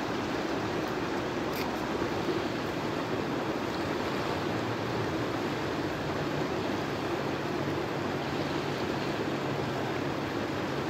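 River rapids rushing over and between boulders: a steady, even wash of water.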